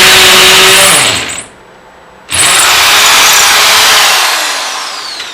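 Electric drill running at full speed, let off about a second in, then started again and run before spinning down with a falling whine near the end.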